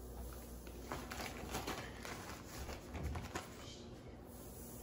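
Faint, scattered taps as floured raw shrimp are set by hand into a wire deep-fryer basket, with a soft knock about three seconds in.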